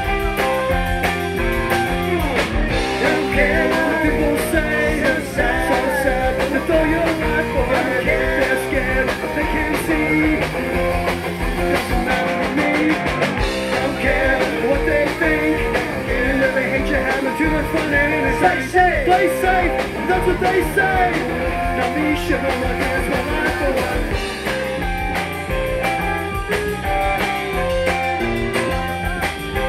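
Rock band playing live at full volume: electric guitars and bass over a steady drum-kit beat, with a wavering lead melody riding on top for much of the passage.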